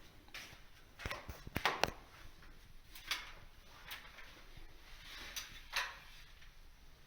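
Quiet small room with a cluster of sharp light clicks about a second in, followed by a few soft, brief rustles and knocks.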